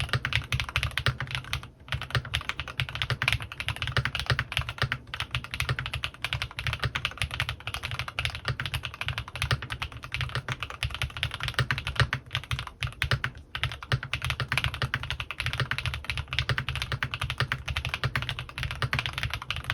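Fast continuous typing on a CannonKeys Rekt1800 custom mechanical keyboard with lubed Gateron x Swagkeys Pure Berry linear switches and PBT keycaps, a dense stream of key clacks with a brief pause about two seconds in.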